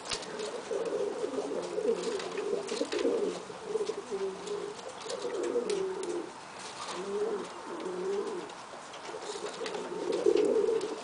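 Domestic pigeons cooing, one wavering coo after another with short pauses between.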